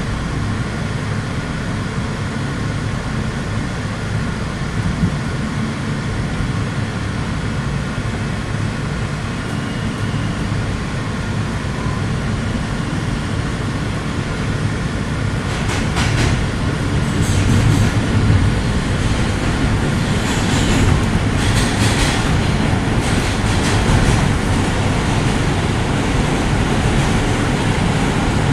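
Inside an R160 Kawasaki subway car as it pulls out of a station and runs into the tunnel: a steady low rumble of wheels and running gear. About halfway through it grows louder, with a run of clicks and rattles as the train picks up speed.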